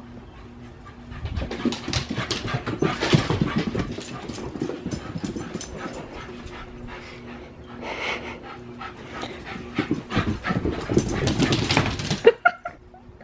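Small dog panting hard in quick, rapid breaths, in two loud stretches, after running about at full speed. A sharp knock sounds near the end.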